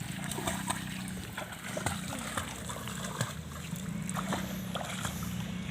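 Water splashing and sloshing in a swimming pool in short, irregular splashes, over a steady low hum.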